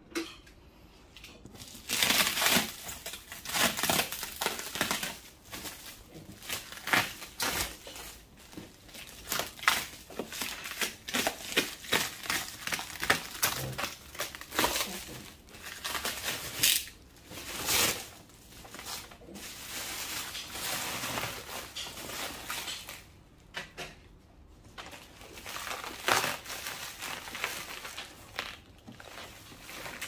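Plastic stretch wrap crinkling and tearing in irregular bursts as it is cut and pulled off a cardboard box, starting about two seconds in.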